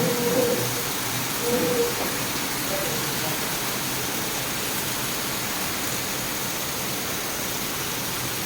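Heavy rain falling steadily, an even hiss. Twice in the first two seconds a short voice-like sound rises over it.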